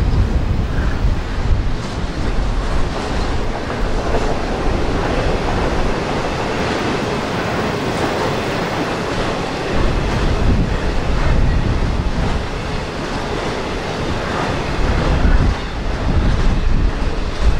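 Freight train cars rolling past on the rails, a continuous noise of steel wheels on track, with wind gusting on the microphone.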